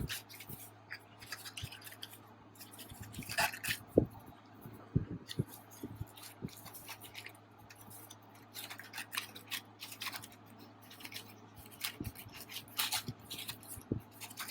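Hands handling phone-case packaging: scattered taps, clicks and rustles of card and plastic, irregular and short, over a faint steady low hum.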